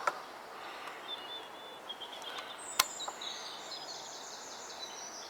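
Small songbirds chirping and warbling in the background. A few short sharp clicks come through it, the strongest nearly three seconds in.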